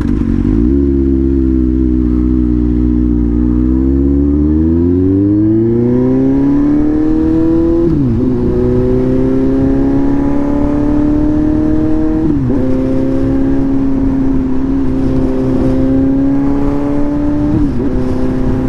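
Suzuki GSX-S750's inline-four engine pulling hard under acceleration, the revs climbing and then dropping sharply at each of three upshifts. The bike has no quick shifter, so it is shifted up with the clutch.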